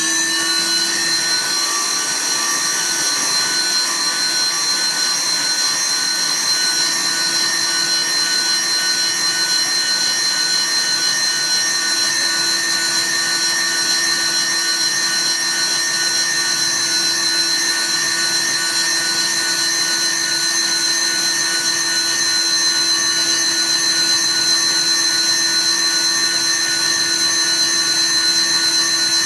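Countertop blender motor running with a steady whine, whipping egg yolks and melted butter into a thickening sauce.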